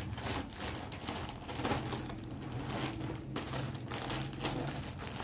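Clear plastic packaging around folded clothes crinkling and rustling as it is handled, in quick irregular crackles, over a low steady hum.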